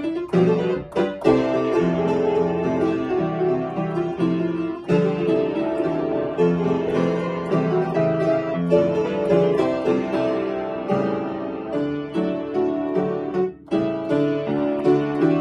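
Upright piano played in a lively, busy passage of many quick notes, with brief breaks about a second in and near the end.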